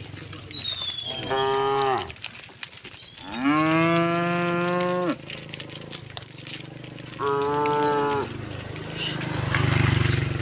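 Cows mooing three times: a short moo, then a long loud one, then another, with birds chirping and whistling between them. A low rumbling swell rises near the end.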